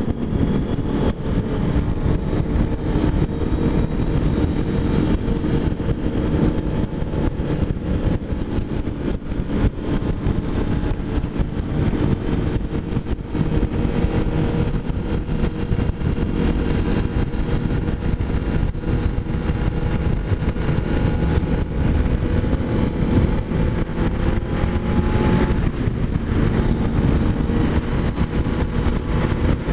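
Kawasaki motorcycle engine running steadily while riding at road speed, with heavy wind rush over the microphone.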